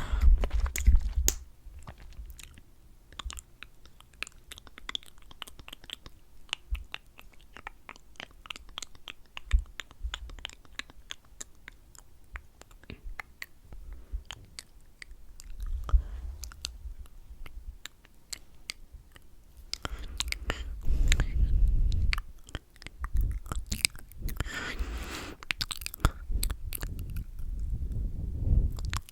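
Close-miked clicking and tapping on plastic lip gloss tubes and caps, many small sharp clicks with louder handling rustles and thumps about two-thirds of the way through.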